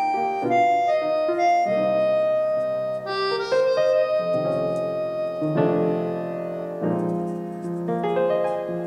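Background music: piano or electric-piano notes and chords.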